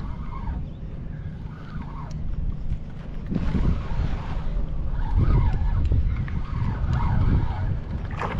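Wind buffeting the microphone in a low, steady rumble that grows stronger about three seconds in.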